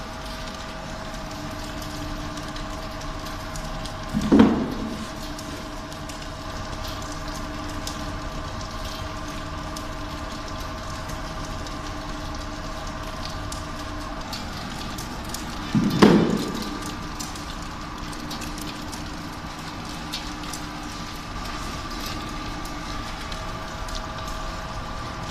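Small screw oil press running steadily while pressing black sesame seeds: a constant mechanical hum with faint crackling and clicking, broken twice by a loud knock, about twelve seconds apart.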